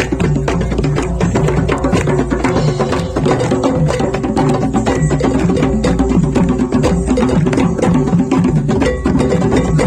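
Background music with fast, steady percussion, woodblock-like clicks over pitched notes.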